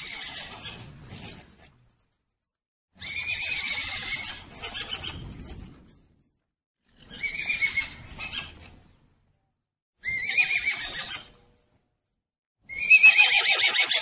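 Horse whinnying: five separate whinnies, each a high, quavering call one to three seconds long, with dead silence between them. The last, near the end, is the loudest.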